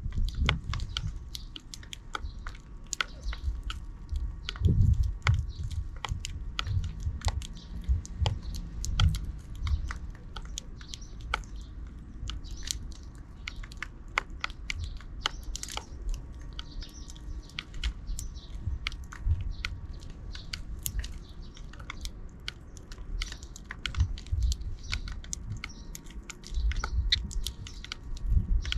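Sparrows close to the microphone: a busy, irregular run of small clicks, taps and scratches, with low thumps and a few faint chirps.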